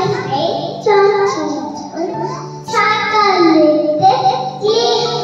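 A young girl sings a nursery rhyme into a handheld microphone, in several short phrases with gliding notes.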